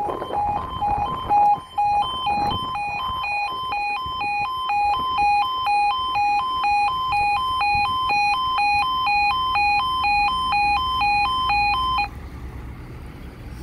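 Level crossing audible warning alarm (the UK 'yodel' alarm), two tones alternating about twice a second, that cuts off suddenly about twelve seconds in. A brief loud thump about a second and a half in.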